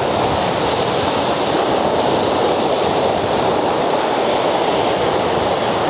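Sea surf washing onto a shingle beach: a steady, even rush of breaking water.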